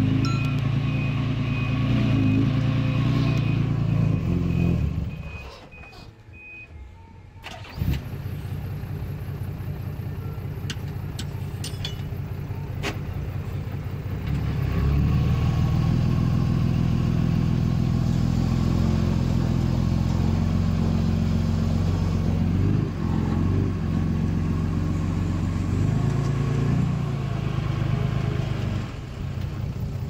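Diesel engine of heavy earthmoving machinery running, with a reversing alarm beeping evenly for the first several seconds. The engine sound drops away briefly about five seconds in, then runs steadily and louder in the second half, with a couple of short revs near the end.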